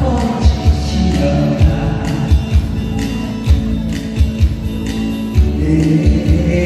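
Korean trot song playing, with singing over a steady drum beat.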